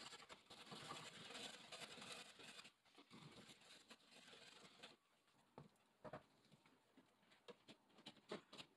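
Hand drywall saw rasping faintly through drywall along a marked cut line. About five seconds in the rasping stops, giving way to a few scattered light clicks and taps.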